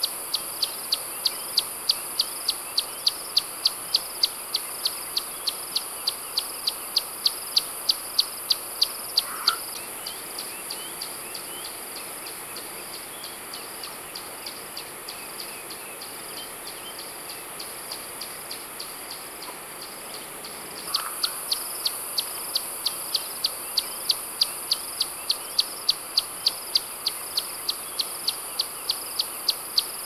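Bush ambience: a steady, high insect buzz with a sharp chirp repeating about three times a second over it. The chirps drop back to a softer level for a stretch in the middle.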